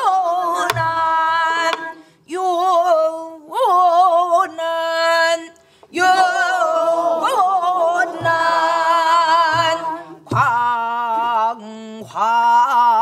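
Pansori singing: long held, sliding notes with wide vibrato, sung in phrases broken by short breaths about every three to four seconds. A few short low strokes come from a buk barrel drum.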